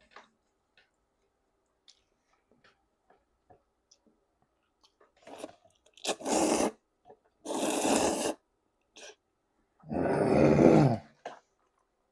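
Quiet chewing and wet mouth clicks, then three loud slurps of jajangmyeon noodles, each under a second long, about six, seven and a half and ten seconds in; the last slurp carries a low falling tone.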